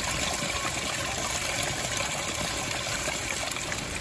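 Steady stream of water pouring from a metal pipe spout and splashing into a hollowed-log trough, a continuous even rush.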